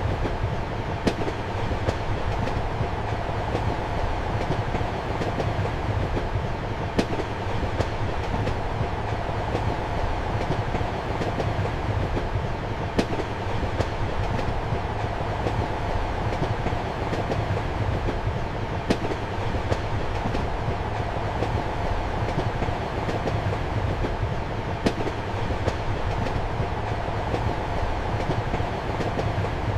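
Passenger train running at speed, heard from inside a compartment: a steady low rumble and hum, with a sharp click of the wheels over a rail joint every few seconds.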